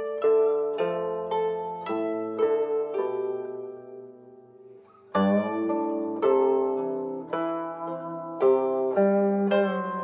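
Background guqin music: plucked zither notes that ring and fade, dying down almost to nothing about four to five seconds in before the playing picks up again.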